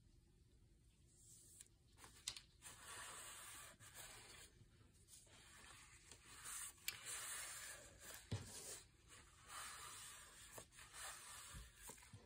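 Faint rubbing and rustling of paper and card as hands press and smooth layered pieces of a paper pocket, in stretches with a few light taps.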